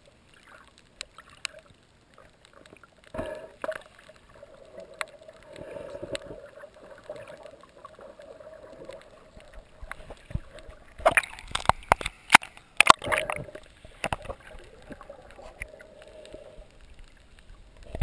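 Water sloshing and gurgling heard through an underwater camera, with scattered sharp clicks and a loud cluster of clicks and knocks about eleven to thirteen seconds in.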